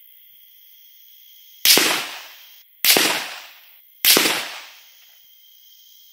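Three shots from a Sauer S100 bolt-action rifle in .223 Remington, about a second and a quarter apart, each a sharp crack dying away over most of a second.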